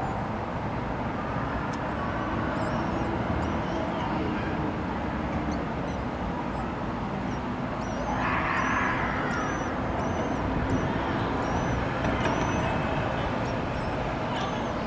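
Steady urban traffic rumble, with thin, high chirps repeating faintly through it: the soft calls of common kestrel nestlings. A brief hiss swells about eight seconds in.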